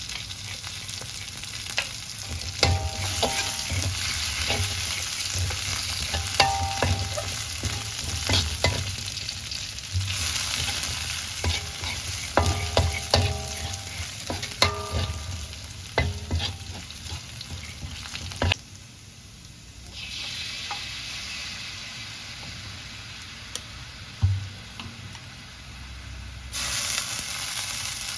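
Food sizzling steadily in a hot oiled pan while a metal spatula stirs it, clicking and clinking against the pan in short clusters.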